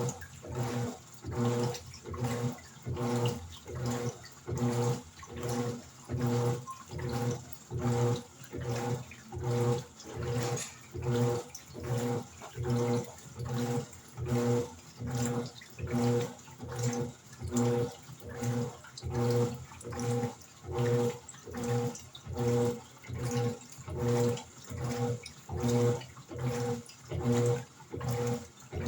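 Electrolux LED14 top-load washing machine in its wash stroke: the motor turns the drum back and forth about once a second, humming with each stroke as the water and clothes slosh.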